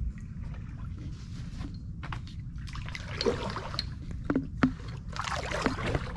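Kayak paddle strokes in calm water: the blade dipping and splashing, with water trickling off it, over a steady low rumble. There are a few light knocks about two-thirds of the way in.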